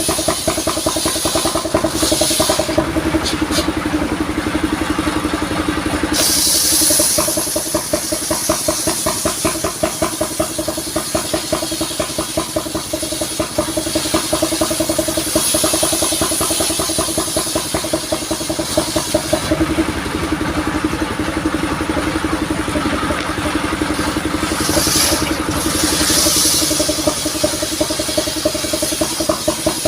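Engine of a truck-mounted sawmill running steadily with a fast, even beat and a steady hum. Stretches of high hiss come and go several times.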